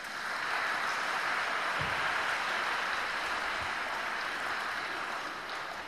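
A large audience applauding. The clapping swells up quickly, holds steady, and dies away near the end.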